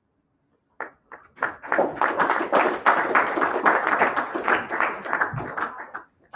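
A class of students applauding: a few scattered claps about a second in, building quickly to dense clapping that fades out near the end.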